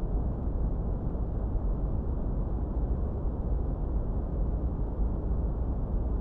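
Steady brown noise: a constant deep, even rush, heaviest in the low end and with no high hiss, unchanging throughout.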